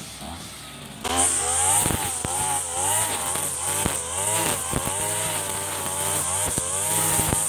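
Mitsubishi TU33 33 cc two-stroke backpack brush cutter idling, then from about a second in revved up and down over and over as it cuts grass, with scattered sharp ticks.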